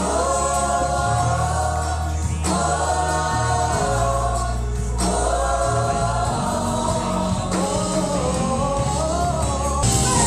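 Gospel worship music: a choir of voices singing over a steady bass line.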